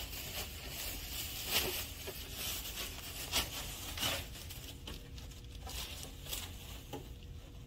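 Handling noise: light rustling with a few soft knocks and taps at irregular intervals, over a low steady hum.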